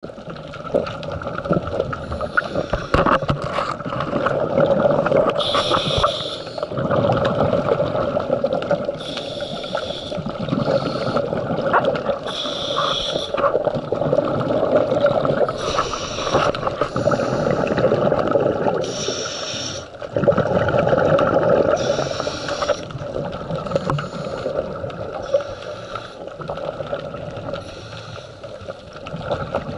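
Scuba diver breathing through a regulator underwater: a hiss on each inhale, recurring about every three to four seconds, with bubbling, gurgling exhalations between.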